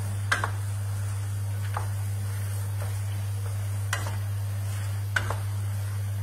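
Wooden spoon stirring rigatoni in a frying pan on a gas hob, the pasta cooking in a little starchy cooking water with a faint sizzle. The spoon knocks sharply against the pan four times. A steady low hum runs underneath.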